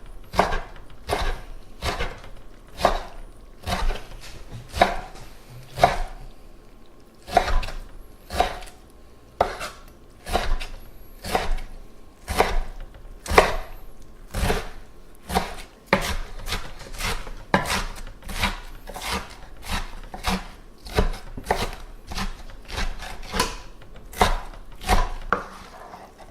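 Kitchen knife chopping kimchi finely on a cutting board: sharp knocks of the blade on the board, about one to two a second, unevenly spaced.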